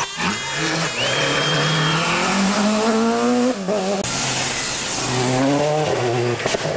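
Rally cars at full throttle, engines climbing in revs through gear changes, twice. A loud rushing noise comes in about four seconds in.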